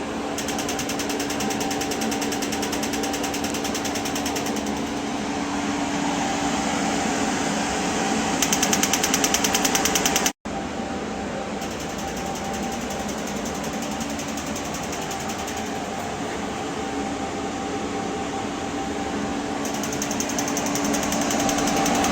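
PEMF magnetic stimulation machine running a treatment: its coil clicks in a rapid, even pulse train over the steady hum of its air-cooling fan, the clicking getting louder in stretches. The sound breaks off for an instant about halfway through.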